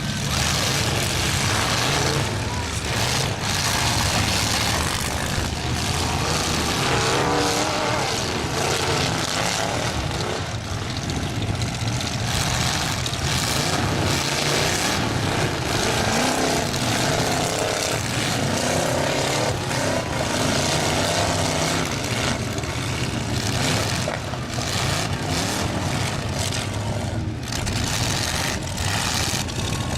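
Several demolition-derby pickup trucks' engines revving hard, their pitch rising and falling, with repeated sharp crashes as the trucks collide.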